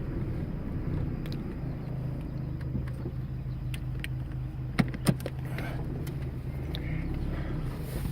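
Car running, a steady low engine hum with road noise, with two sharp clicks close together about five seconds in.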